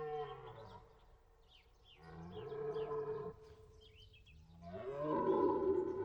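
Red deer stag roaring in the rut: a call trailing off just after the start, another deep roar about two seconds in, and a louder one near the end. Small birds twitter faintly in the background.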